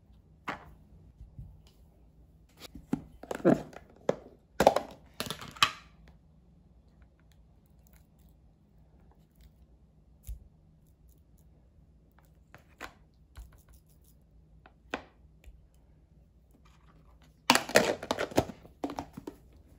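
Kitchen handling noises: a cluster of loud knocks and scrapes a few seconds in, a few quiet clicks as thick Greek yogurt is scooped with a wooden spoon, then a plastic food container's lid pressed down and snapped shut near the end, the loudest sound.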